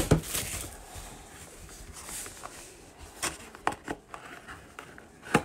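Hands handling a cardboard trading card box and plastic card holders: scattered handling noise with a sharp click right at the start, a couple more taps a little after three seconds, and another knock near the end.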